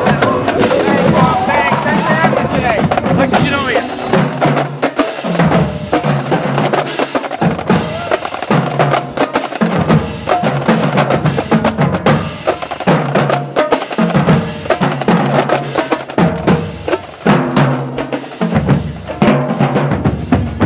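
Marching band drums playing a steady cadence, with sharp snare drum hits over a repeating bass drum pattern.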